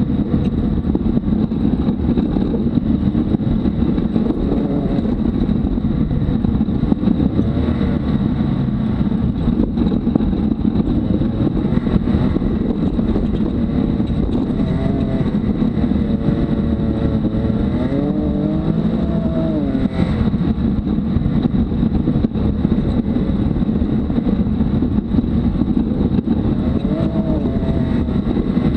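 Can-Am Maverick X3 side-by-side's turbocharged three-cylinder engine running under load on a rough dirt trail, heard from inside the open cab along with steady ride noise. The revs rise and fall with the throttle, most plainly in the middle of the stretch and again near the end.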